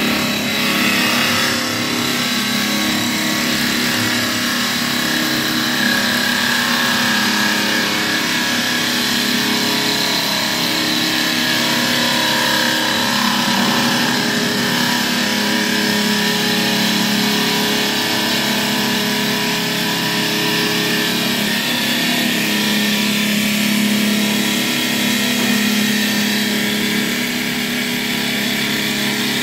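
Two-spindle CNC wood lathe running its automatic turning cycle: the spindles spin the wood blanks while the cutters shape them, making a loud, steady machine hum and whir.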